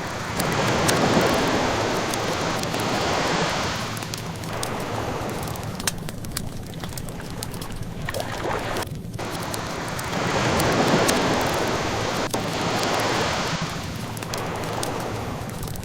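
Ocean waves washing in twice, each swell rising and ebbing over a few seconds, with a wood fire crackling and popping throughout.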